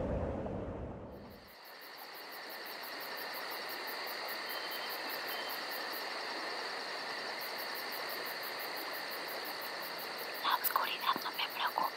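A low rumble fades away in the first second and a half and gives way to a steady chorus of insects: a shrill, even chirring with a faster pulsing trill above it. Near the end a whispered voice comes in with a few short breathy phrases.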